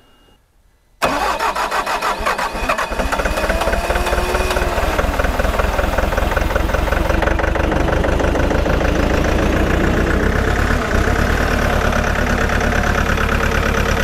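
Bobcat T740's four-cylinder Doosan D34 common-rail diesel starts suddenly about a second in, then settles to a steady idle. It is running on three cylinders with the number two injector blocked off at the rail, which lets it build enough rail pressure to fire despite leaking injectors.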